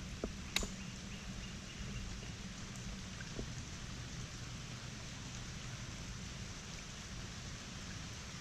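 Steady patter of light rain, with a few small ticks and one sharp click about half a second in.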